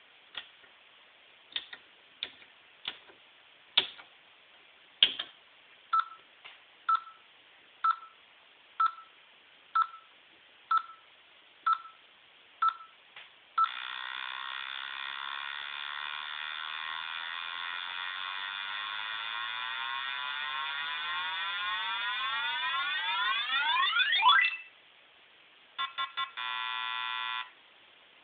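Keys clicking on an HP 5036A microprocessor lab board's keypad. Then the board's speaker beeps once a second, about eight times, and gives a long buzzy electronic tone that sweeps in pitch and grows louder for about eleven seconds before cutting off suddenly: the board's built-in rocket-launcher demo. Near the end come three quick beeps and a short steady tone.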